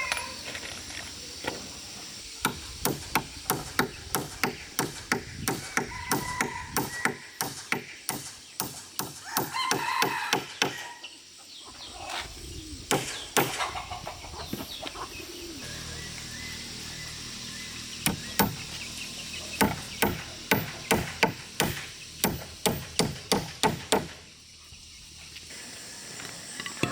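A rapid run of sharp tool strikes, about three a second, stopping for a while partway through and then starting again, typical of hammering or chopping on timber. Chickens cluck in between.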